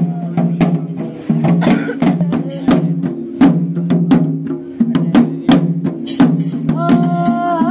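Theyyam ritual music: hand-struck drums beating sharp, even strokes about three times a second over a low steady drone of tones. Near the end a held, pitched note comes in over the drumming.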